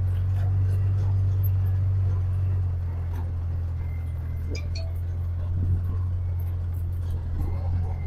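Side-by-side utility vehicle's engine running steadily, a low even drone.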